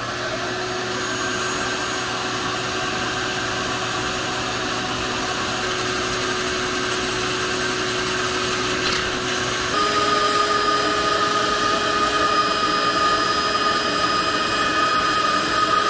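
Vacuum running steadily, its hose nozzle held at a freshly drilled hole in the oil pan to suck up the shavings. Its pitch steps up slightly about ten seconds in.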